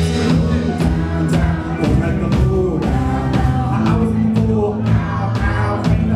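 Live rock band playing a hip-hop medley: drum kit, guitars and keyboards over a steady beat, with singers on microphones.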